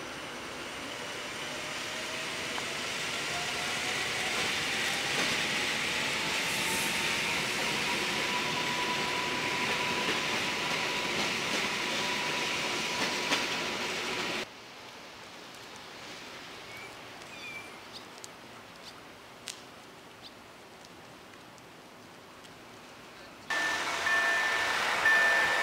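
Electric multiple unit pulling away, its traction motors whining in a pitch that rises and then holds steady over the rolling of the wheels. About fourteen seconds in it gives way to quiet outdoor background, and near the end a level-crossing warning bell starts ringing.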